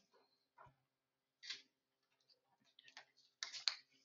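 Faint, scattered clicks and rustles with quiet between them: one short sound about a second and a half in, then a louder little cluster of clicks near the end.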